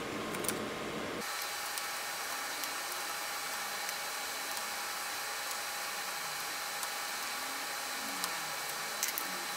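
Steady background hiss with a few faint, scattered clicks of a screwdriver working the Torx screws on a server processor module's copper heatsink.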